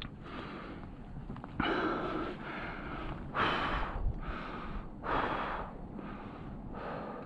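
A climber's heavy breathing close to the microphone: hard breaths in and out roughly every second and a half, from the exertion of climbing.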